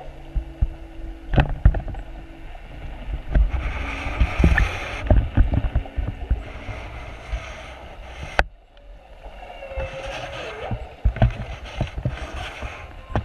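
Underwater sound picked up by a camera in its housing: a rushing wash of water with many sharp knocks and clicks, and the low hum of the boat's motor carried through the water.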